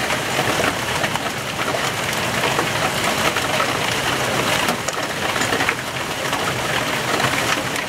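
Heavy rain in a hailstorm pouring onto the patio and the plant pots: a dense, steady hiss of drops, thick with small ticks of impacts.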